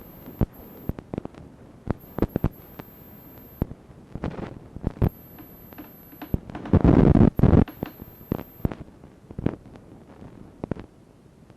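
Scattered small clicks and knocks of a laptop being handled and its bottom-cover screws being driven in, with one louder stretch of handling noise about seven seconds in.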